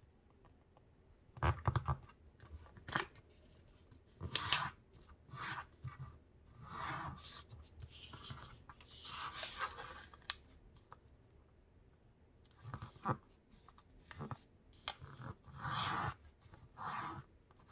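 A sheet of paper being folded by hand: intermittent rustling and crinkling, with fingers sliding along to press the folds into creases and a few sharper taps.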